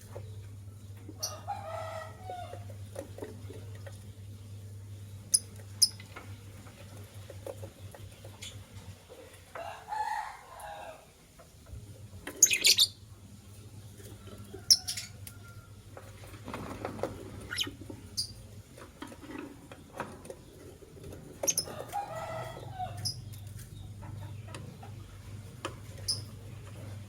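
Lovebirds calling now and then with short chattering calls and sharp high chirps, with a few sharp clicks in between. A steady low hum runs underneath, dropping out for a few seconds near the middle.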